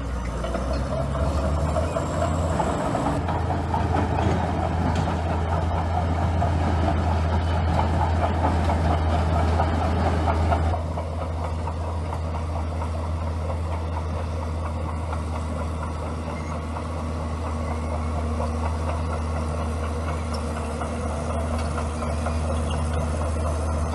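Bulldozer's diesel engine running steadily with a deep hum, louder for the first ten seconds or so and then dropping to a lower level.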